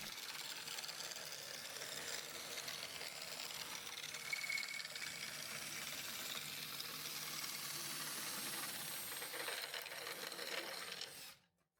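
Drill spinning a square wood strip through a doweling jig, the jig's blade shaving it into a round dowel: a steady hissing, grinding run with a faint motor whine, cutting off suddenly near the end.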